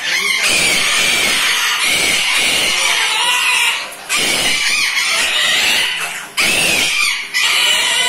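Caged parrots screeching loudly: long, harsh calls that run on with short breaks about four, six and seven seconds in.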